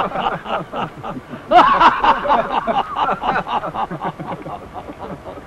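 Laughter: a long run of quick, repeated laughing bursts, loudest about one and a half seconds in and dying away toward the end.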